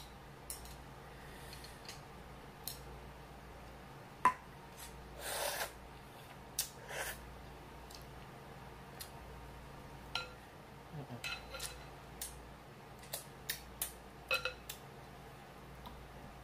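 Close-miked eating sounds: broth sipped from a large ceramic soup spoon with a short slurp about five seconds in, wet mouth clicks and chewing, and scattered clinks of utensils against glass bowls, the sharpest about four seconds in.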